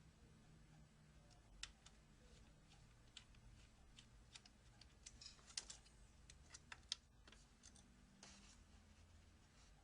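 Faint, irregular small clicks and taps, a dozen or so, from fitting a 2.5-inch SATA drive and its connector cable into a laptop's metal drive caddy bracket; the sharpest clicks fall in the middle.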